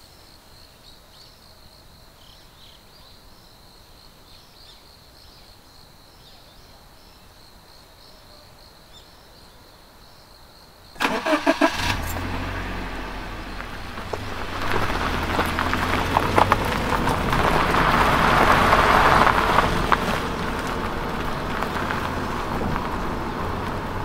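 Faint background with a thin steady high tone, then about eleven seconds in a car engine starts with a few sharp clicks and keeps running, growing louder for several seconds as the car pulls away before levelling off.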